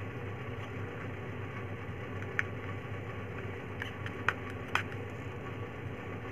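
Paco Rabanne 1 Million perfume bottle being handled and sprayed: four short, sharp puffs or clicks from about two seconds in, the last two about half a second apart. Under them is a steady low hum.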